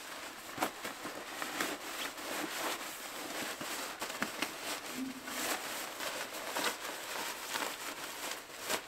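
A Joutsen Tauko down jacket being pulled out of its own stuff pocket and unrolled: the nylon shell rustles and crinkles, with many small sharp handling clicks.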